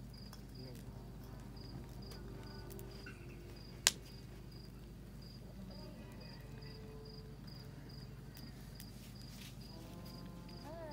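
A cricket chirping in a steady, evenly spaced high-pitched rhythm, with faint voices in the background. A single sharp click about four seconds in.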